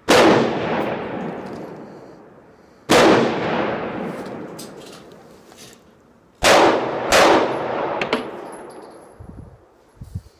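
Four pistol shots, each with a long echoing tail under a wooden-roofed shooting shed: two single shots about three seconds apart, then a quick pair less than a second apart from a SCCY CPX-2 9mm pistol. A few light handling clicks follow near the end.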